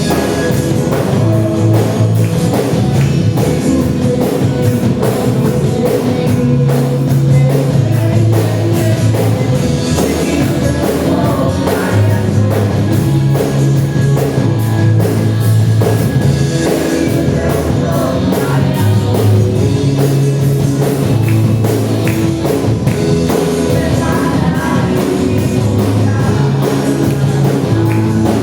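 Christian worship song in a rock style: singing over drum kit, bass and guitar with a steady beat.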